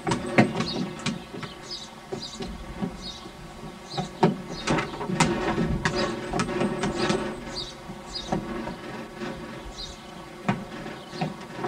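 A small toy basketball bouncing and knocking on a wet wooden deck, with a toddler's footsteps on the boards; scattered sharp knocks throughout, over a steady background with faint high chirping.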